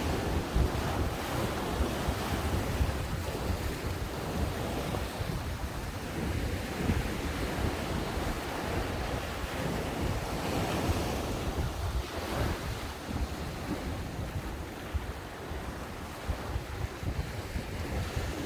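Ocean waves breaking on a beach, a continuous surf wash that swells and eases, with wind rumbling on the microphone.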